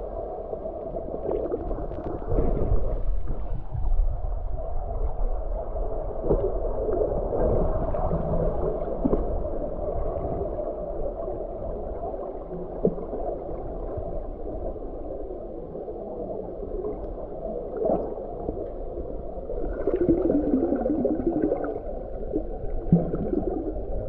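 Muffled underwater sound picked up by a submerged camera: water gurgling and sloshing with a low rumble, rising and falling in swells, and a few short knocks.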